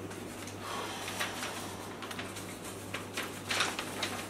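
Paper rustling as a card and letter are handled and unfolded: soft, irregular scrapes and crinkles over a steady low hum.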